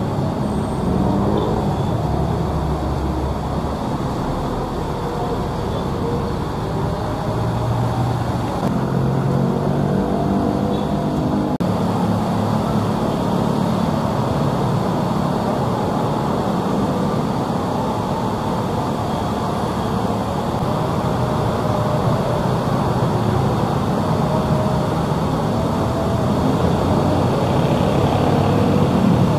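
Heavy rain and road traffic on a wet road: a steady rush of rain and tyre noise, with the drone of passing engines, buses among them, heard most clearly in the first dozen seconds.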